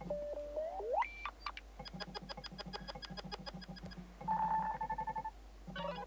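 Nothing Phone 2's built-in electronic ringtones previewed one after another through the phone's speaker. First comes a held tone that glides sharply upward. Then a fast run of short beeps, about eight a second, and a steady held tone, with a chirping pattern starting near the end.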